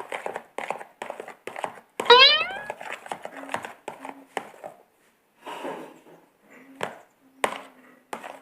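A series of light taps and knocks in a small room, with a short squealing sound that glides in pitch about two seconds in.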